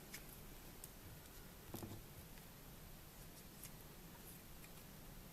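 Near silence: faint room tone with a few soft clicks from handling the phone's small parts.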